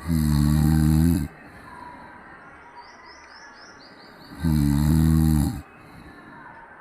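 A cat snoring: two loud snores about four seconds apart, each lasting about a second, with quiet breathing between.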